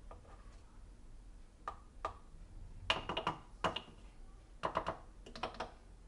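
Ground coffee being scooped into a stainless-steel portafilter basket: several short clusters of quick clicks and taps as the scoop meets the basket.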